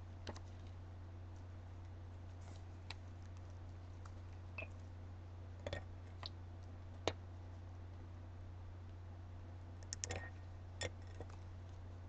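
Scattered light clicks and taps from handling a wine glass and small painting tools, irregular, with the sharpest one about seven seconds in and a quick cluster around ten seconds, over a steady low hum.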